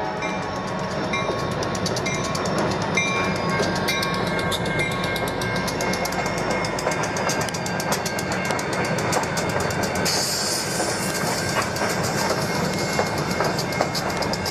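CSX diesel freight locomotives rolling past with their engines running, then hopper cars following, wheels clicking steadily over the rail joints.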